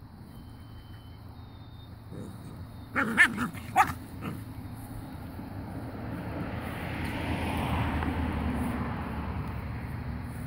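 Miniature American Shepherd puppies barking and yipping in play as they wrestle, a quick burst of high yaps about three seconds in. A rushing noise swells and fades over the later seconds.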